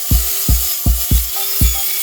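Background electronic music with a steady, heavy kick-drum beat and a sustained synth melody.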